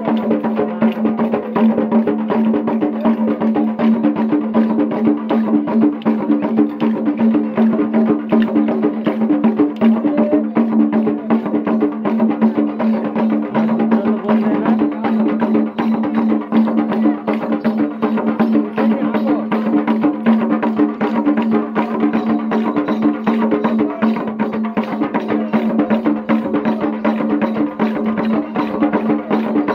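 Korku folk dance music: fast, even clicking percussion and dhol drumming over a steady droning tone.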